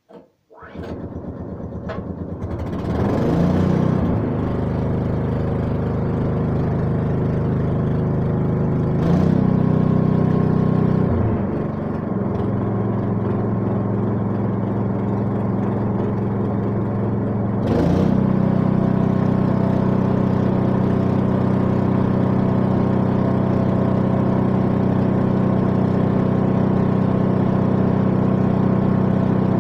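Small single-cylinder petrol engine (a 6.5 hp Honda GX200 clone) starting up within the first second and settling into steady running, belted to a table saw. Its speed rises about nine seconds in, drops back a couple of seconds later, and rises again near eighteen seconds, then holds steady.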